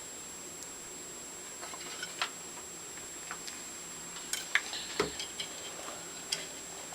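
Scattered light clicks and taps of small metal parts of a Stanley No. 113 circular plane being handled while they are oiled and fitted back together, a few at first and more from about four seconds in.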